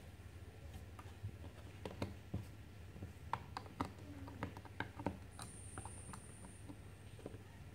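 Faint, irregular clicks and taps of chunky plastic toy building blocks and a Peppa Pig figure being handled, busiest in the middle, over a low steady hum.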